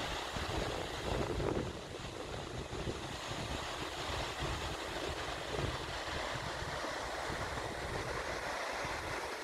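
Steady rushing of a waterfall, with wind buffeting the microphone in uneven low gusts.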